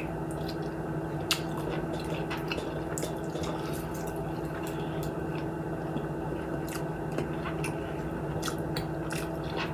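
A person chewing food close to the microphone: soft wet mouth clicks and squelches at irregular moments. A steady low hum runs underneath.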